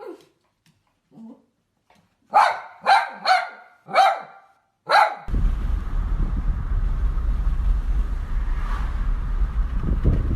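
A dog barks five times in quick succession. Then the sound cuts to steady wind rumble on the microphone.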